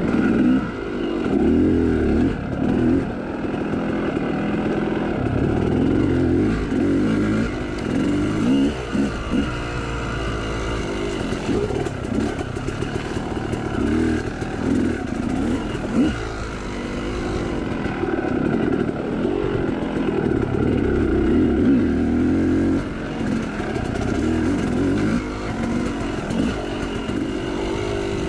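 Yamaha YZ two-stroke dirt bike engine under way on a trail, the revs rising and falling again and again as the throttle is worked on and off.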